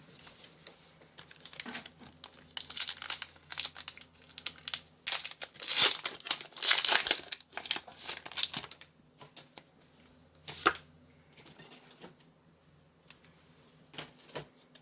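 Pokémon booster pack foil wrapper crinkling and being torn open, a run of rustling and ripping loudest around the middle, then lighter crackles and a single sharp click.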